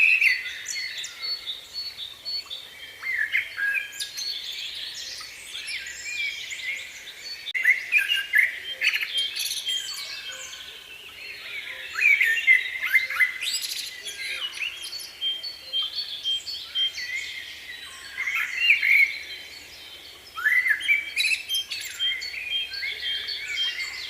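Small songbirds chirping and singing, many short calls and trills overlapping, in louder bursts every few seconds.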